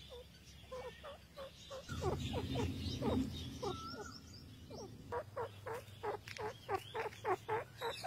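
Grey francolin at the nest giving a run of short, downward-sliding clucks that come faster toward the end, about four a second. A low hum sits under the calls in the middle.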